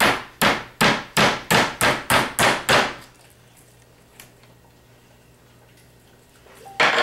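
Metal meat tenderizer mallet pounding thick pork loin chops flat on a glass cutting board. There are about eight even blows, roughly two and a half a second, and they stop about three seconds in. Near the end comes one louder knock.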